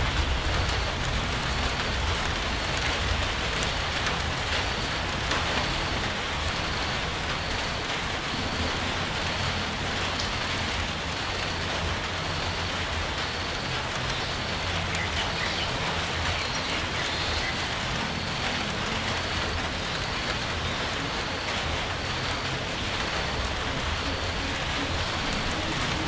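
Steady rain falling, an even dense hiss with a low rumble underneath.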